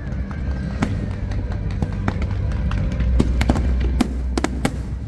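Aerial fireworks bursting over music played for the show: scattered sharp bangs, coming faster in a cluster near the end.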